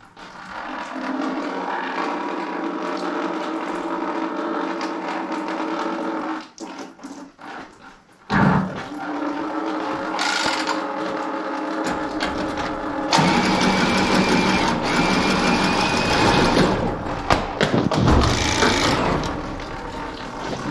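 A small motor running steadily. It stops for about two seconds partway through, then starts again and runs louder and hissier, with a thin high whine, for the second half.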